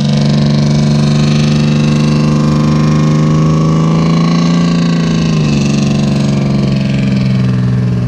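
Kettenkrad's Opel 1.5-litre four-cylinder engine running. Its speed creeps up slightly, then falls about five seconds in and settles at a lower, steady pitch.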